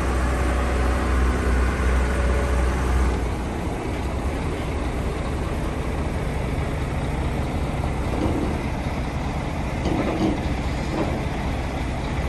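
Atlas 1704 wheeled excavator's diesel engine running steadily, its low note dropping to a quieter, lower idle about three seconds in.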